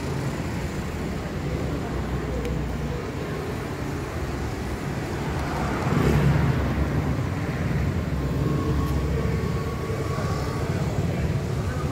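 Street traffic noise: a steady low rumble of passing vehicles, louder for a moment about six seconds in.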